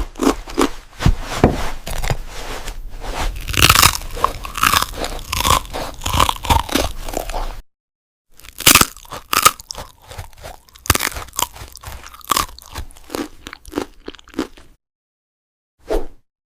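Close-miked crunching of a crisp cookie being bitten and chewed: dense, irregular crackling crunches. They break off sharply twice, in about a second of dead silence after the first half and again near the end, before one last short crunch.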